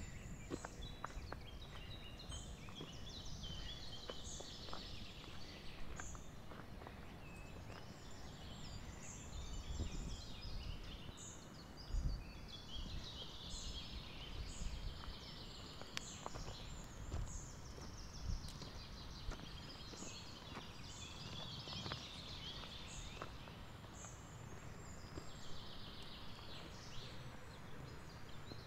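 Songbirds singing, with many short high chirps and trills overlapping throughout. Occasional low thumps sound underneath, the strongest about halfway through.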